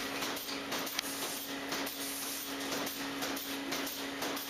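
Water spraying in short bursts from a hose nozzle to wash cows' udders before milking, over a steady hum from the milking-parlor machinery.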